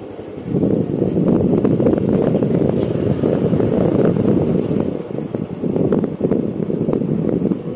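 Wind buffeting the microphone: a loud, gusty low rumble that rises and falls, with a few brief dips.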